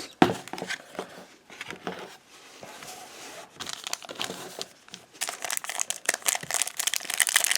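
Foil booster pack wrapper crinkling as it is handled, irregular crackles that get denser and louder about five seconds in.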